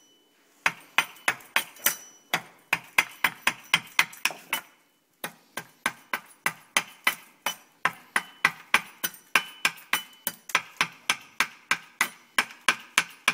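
A small hatchet blade chopping repeatedly into a wooden stave in quick light blows, about three to four a second, each a sharp crack with a short metallic ring. The blows break off briefly about five seconds in, then resume.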